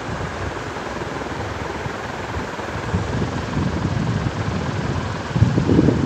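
1998 Solaster Inove ceiling fan running, its draft buffeting the microphone with a gusty low rumble over a steady airy hiss, the buffeting growing stronger in the last second or so.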